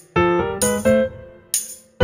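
Background music: a keyboard plays a short phrase of notes stepping upward, with a bright jingling hit twice.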